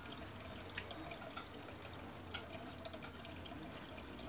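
Faint, scattered light clicks and brushes of oracle cards being handled and laid one on another by hand, over a low steady room hum.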